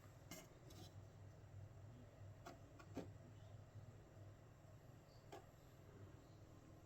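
Hammond power transformer giving a faint, steady low hum, with a few light clicks and taps over it.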